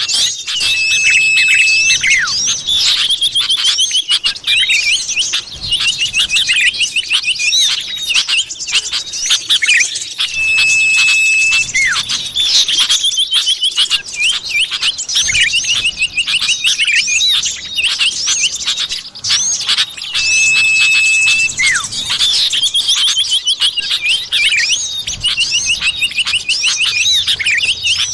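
Looped lure recording of common iora (cipoh) calls: a long steady whistle followed by dense, rapid chattering and trilled chirps, the sequence repeating about every ten seconds.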